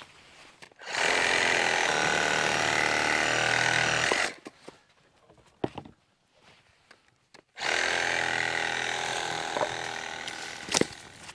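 Milwaukee cordless reciprocating saw cutting through a log: a steady run of about three seconds, a pause, then a second run of about three seconds that fades as it finishes.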